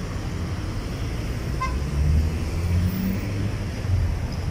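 Road traffic: cars driving past in a city street, with one vehicle's engine rumbling louder as it goes by about two seconds in.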